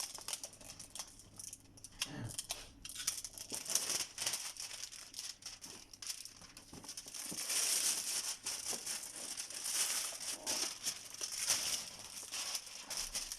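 Packaging on a sealed vacuum cleaner box crinkling and tearing as it is unwrapped, with irregular rustles and clicks that grow louder about halfway through.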